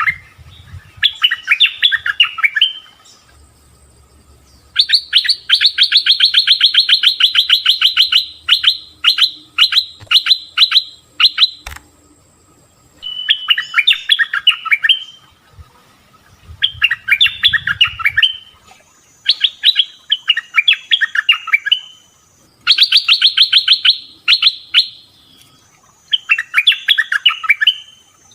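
Bulbul (merbah) calls: loud bursts of rapid chattering notes, each lasting a second or two and repeated with short gaps. A longer unbroken run of fast notes comes from about five to twelve seconds in.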